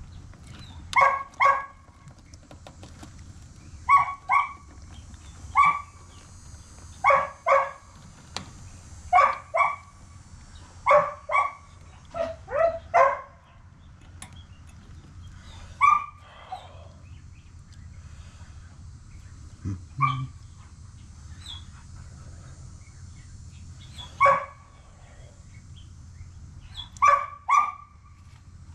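Dogs barking, mostly in quick pairs, often through the first half and only now and then after that, over a steady low hum.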